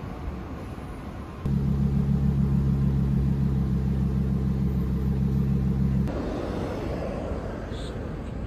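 Outdoor city street ambience. From about a second and a half in, a louder steady low mechanical drone with a fixed pitch comes in and cuts off abruptly about six seconds in, giving way to quieter street noise.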